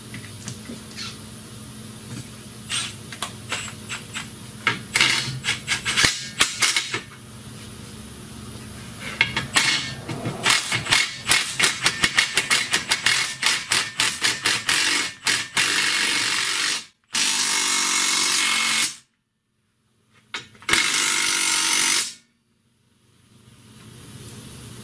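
Red cordless impact wrench run against an underside bolt: first in a fast string of short trigger bursts, then in longer continuous runs as the fastener is driven home.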